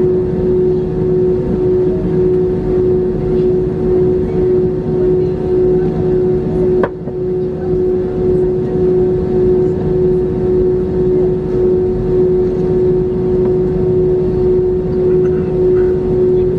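Airbus A321 cabin noise while taxiing: a steady engine and airflow drone with a constant tone running through it. A brief click comes about seven seconds in.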